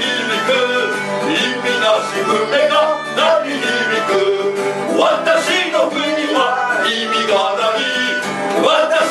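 Live band performance: men singing a song over instrumental accompaniment.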